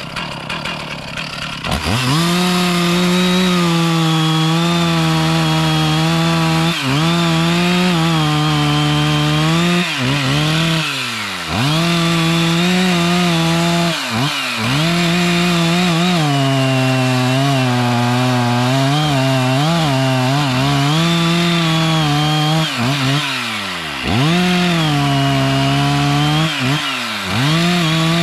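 Chainsaw cutting into a small tree. The engine revs up about two seconds in and runs at high speed, its pitch dropping and recovering again and again as the chain bogs down in the wood.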